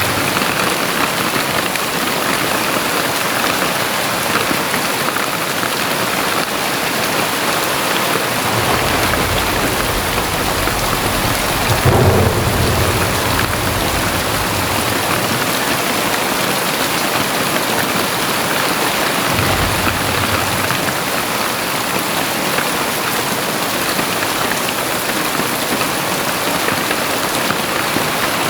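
Very heavy rain pouring down in a steady, dense hiss. A low rumble swells in about nine seconds in, peaks briefly near twelve seconds, and comes back more weakly around twenty seconds.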